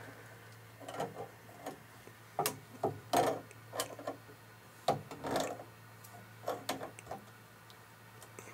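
Pliers tightening a brass water hammer arrestor onto a washing machine shutoff valve, about a turn past hand tight. Irregular metal clicks and scrapes, roughly one or two a second, as the jaws grip, turn and are reset on the fitting.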